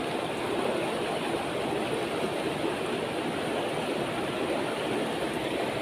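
Shallow river flowing and rushing over rocks, a steady even rush of water.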